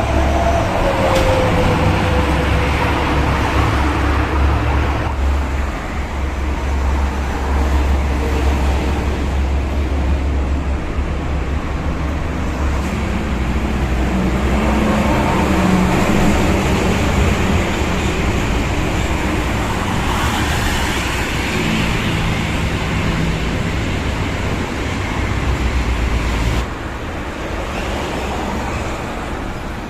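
Fast motorway traffic passing close by: buses and cars going past one after another with tyre and engine noise and a heavy low rumble that swells and fades. The rumble drops away suddenly near the end.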